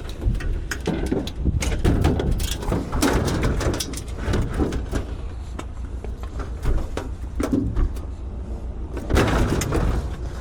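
Irregular knocks, bangs and scraping clatter as scrap appliances and chairs are shifted around on a truck bed, over a steady low rumble.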